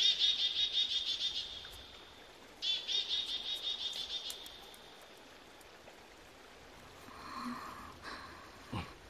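A bird calling twice in rapid high trills of about eight notes a second, each lasting over a second, with fainter calls later and a soft low thump near the end.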